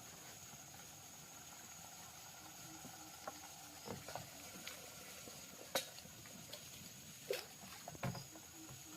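Faint outdoor ambience of insects chirring in one steady high note, with a few scattered sharp clicks and knocks from something being handled.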